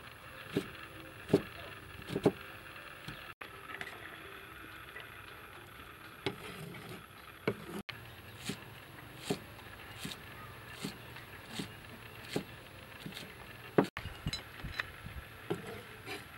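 A cleaver chopping vegetables on a thick wooden chopping board: scattered single knocks, roughly one a second, some closer together.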